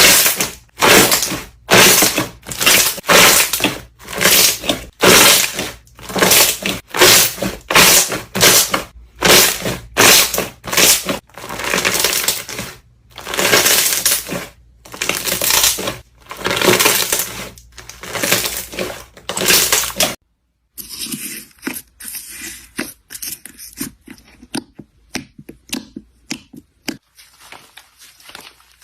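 Slime being squeezed and pressed by hand, crackling and popping in loud rhythmic squishes about twice a second. About twenty seconds in there is a break, and then quieter, quicker crackling clicks follow.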